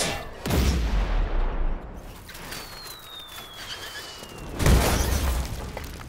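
Explosions created as sound effects. A heavy boom with a deep rumble comes about half a second in. A thin whistle then falls in pitch, and a second, louder boom with crackling debris follows near five seconds.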